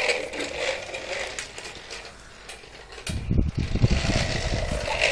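Plastic toy garbage truck being worked by hand, its bin-tipping mechanism clicking and rattling, followed about three seconds in by low bumping knocks as the toy and camera are handled.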